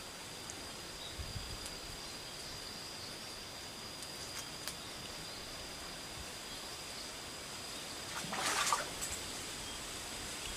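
Steady outdoor ambience of a small stream trickling, with a thin steady high-pitched tone over it. About eight seconds in comes a short noisy burst, the loudest moment.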